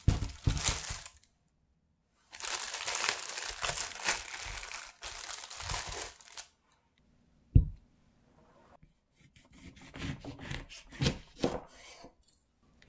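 Thin plastic produce bag crinkling as a bag of oranges is set down and the oranges are handled and pulled out of it. A single sharp thump about seven and a half seconds in is the loudest sound. Near the end comes a run of crunchy strokes as a knife cuts through an orange on a wooden cutting board.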